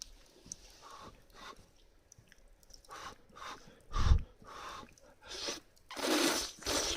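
A person eating hot udon noodles: a run of short chewing and mouth noises, with a dull thump about four seconds in and a louder, noisier stretch near the end.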